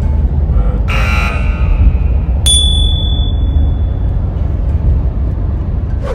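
An added buzzer sound effect about a second in, then a sharp hit with a high ringing tone that fades over a second or so. Beneath them runs the steady low rumble of the diesel pickup's cab at highway speed.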